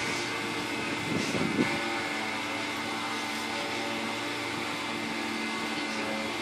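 Steady machinery hum with several steady tones from the yacht's overhead tender crane as it lowers its hook on a wire. A short rattle comes about a second in.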